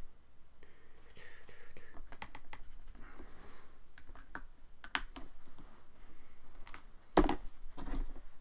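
Paintbrush and painting materials being handled at the work table: a scatter of light clicks, taps and scratches, with a louder knock about seven seconds in and another just before the end.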